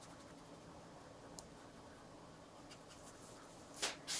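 Faint scratching of a watercolour brush working paint across paper, with two short, louder scratchy strokes near the end.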